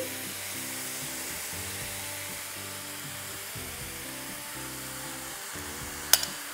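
Chopped onions sizzling steadily in oil in a stainless frying pan as raw ground pork is spooned in from a bowl, with soft background music. A metal spoon clinks sharply once near the end.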